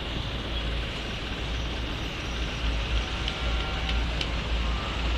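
Steady road traffic noise: a continuous low rumble of vehicles running by, with no horn sounding.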